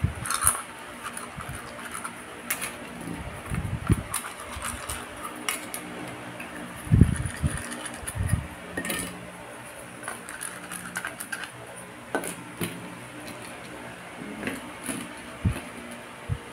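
Thin fluted aluminium tart tins clinking and rattling as they are lifted, turned and set down while oil is brushed into them with a silicone pastry brush. Scattered light metallic clicks and a few soft thumps, the loudest about seven seconds in.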